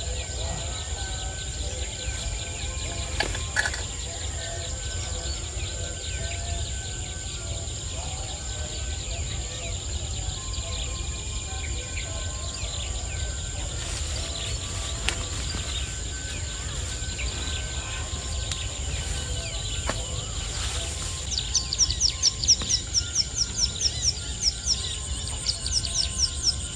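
Open-field dusk ambience: a steady high-pitched insect drone over a low rumble, with scattered faint calls. Near the end a bird starts a rapid run of high, falling chirps, about five a second.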